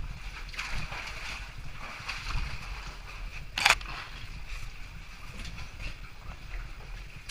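Scuffing, rubbing noise and a low rumble from a helmet-mounted GoPro as a caver scrambles through a rock passage, with a few light clicks and one sharp knock against the rock about three and a half seconds in.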